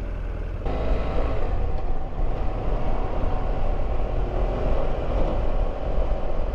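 BMW F700GS motorcycle's parallel-twin engine running with a steady low rumble, mixed with street-traffic noise. The sound gets louder and fuller all at once about half a second in.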